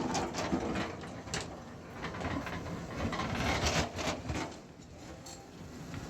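Digging machine's diesel engine running steadily, with irregular clanks, knocks and scraping from the working gear, loudest in the middle.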